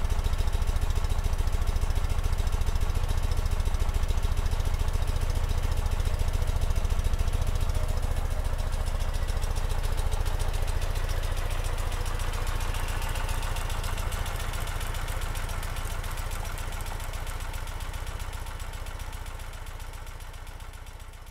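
Ural sidecar motorcycle's air-cooled flat-twin engine, with 140,000 km on it and a Ducati electronic ignition, running steadily at idle, fading out over the last several seconds.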